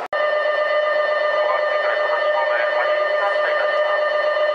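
Station platform departure bell ringing steadily on one held pitch with overtones, signalling that the train is about to leave. It starts just after a sudden break and stops abruptly at the end.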